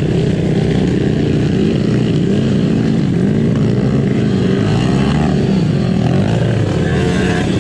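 Honda Win 125cc trail motorcycle's single-cylinder four-stroke engine running while being ridden, its pitch rising and falling with the throttle.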